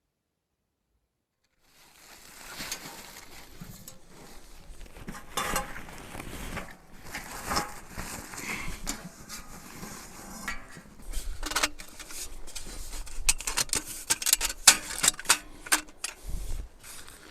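Irregular clatter of objects being handled, with sharp clicks and knocks that set in about two seconds in and come thickest near the end.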